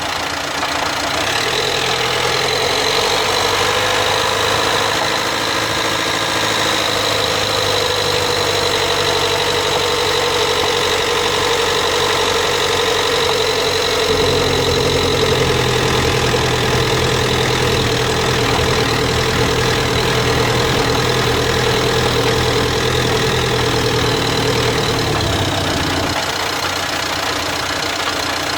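Dacia Duster dCi diesel 4x4 running under way, with a steady droning tone over the engine note that sets in just after the start, deepens about halfway through and stops near the end. The owner hears this grinding noise when accelerating from 1500 to 1800 rpm in fifth or sixth gear and suspects a faulty drive shaft.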